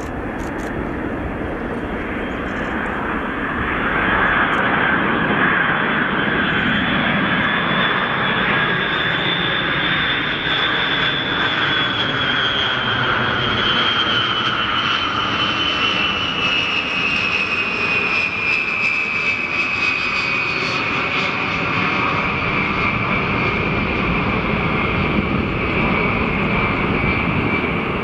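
Boeing KC-135E Stratotanker's four Pratt & Whitney TF33 turbofans on landing approach with gear down: a steady jet rumble that grows louder a few seconds in, topped by a high whine that slowly falls in pitch as the tanker passes.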